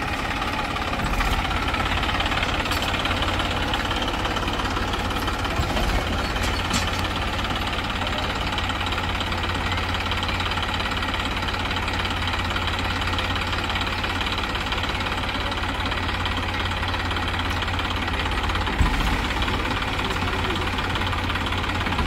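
Heavy diesel engine running steadily, with a low rumble and a single thump near the end.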